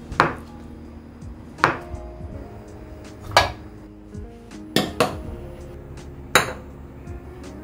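Kitchenware knocking sharply six times, one to two seconds apart, with two knocks close together a little after the middle.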